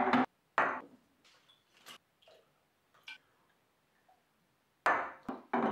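Small shot glasses clinking and tapping on a wooden serving board as they are handled, with faint scattered ticks, then a few sharper knocks near the end.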